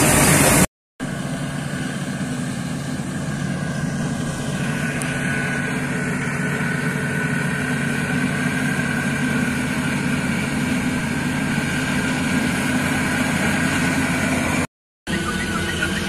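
Dashmesh Crop Cruiser combine harvester running steadily under load while cutting wheat: a continuous engine and threshing-machinery drone with a faint high whine. It opens with a brief louder hiss of grain pouring from the unloading auger, and the sound drops out twice for a moment at cuts.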